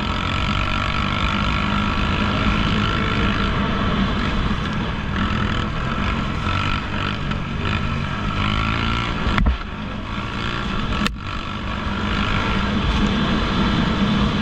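ATV engine running steadily while riding off-road. Two sharp clicks about a second and a half apart come past the middle.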